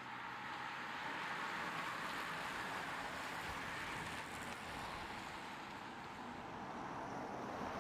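A bunch of road-racing bicycles riding past at speed: a steady rushing hiss of tyres on tarmac that swells about a second in and then holds.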